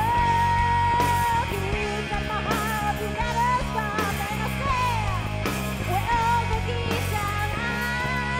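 Rock band playing live: electric bass, electric guitar and a drum kit, with a steady drum beat under a held melody line that bends up and down in pitch.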